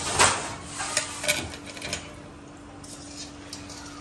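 A metal utensil clattering and scraping against a frying pan while samosas fry in oil. There are several sharp knocks and scrapes in the first two seconds, the loudest just after the start. It then settles to a steady low hum.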